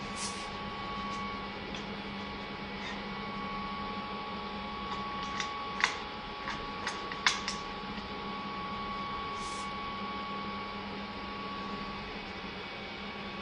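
Steady hum with a short cluster of sharp clicks and knocks about halfway through, as tubes are handled and fitted into the clamp jaws of an orbital welding head.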